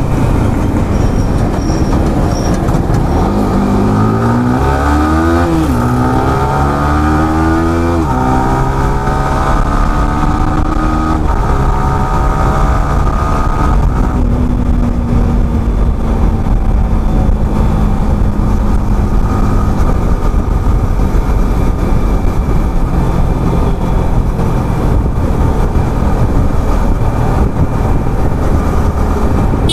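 Yamaha R15M's 155 cc single-cylinder engine accelerating through the gears, its note climbing and dropping back at upshifts about five, eight and eleven seconds in, then holding steady at highway speed before easing off. Heavy wind rush runs underneath.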